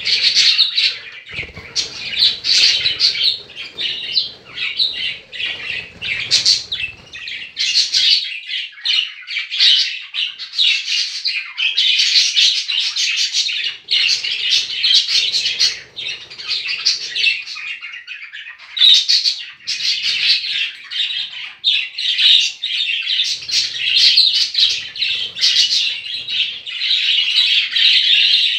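Budgerigars chattering and chirping without pause, a dense warble of many short calls and clicks.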